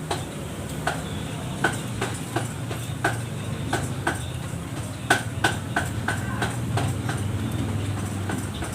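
A series of sharp, irregular knocks or clicks, about one or two a second, over a steady low hum.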